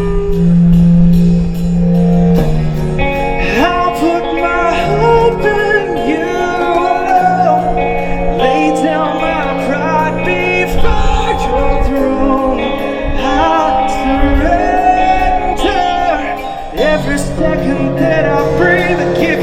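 Live rock band playing: sustained electric guitar chords with a drum beat, and a male voice singing in from about two seconds in.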